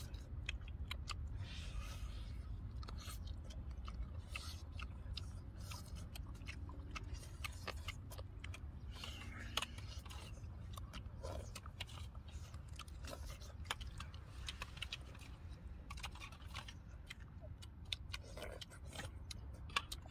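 Close-up eating sounds of people chewing and biting cooked duck meat torn by hand: many small wet clicks, lip smacks and crunches, over a low steady rumble.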